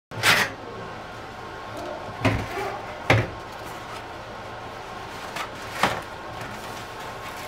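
Toilet paper being pulled off a roll and rubbed across a dry-erase whiteboard, with rustling and rubbing and four sharp knocks against the board or counter. The loudest knocks come just after the start and about three seconds in.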